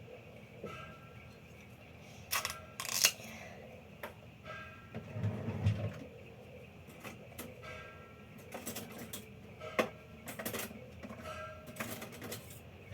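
Scattered clicks, taps and rustling of small objects being handled, with a few short squeaks, most likely the bread bag and sandwich things being worked with.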